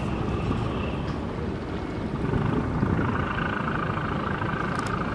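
Steady engine noise from a motor vehicle or machine, a low drone with a higher band of sound growing louder about three seconds in.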